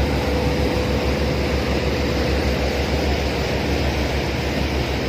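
Boat under way heard from on board: a steady low engine rumble mixed with wind and water noise, with a faint steady hum.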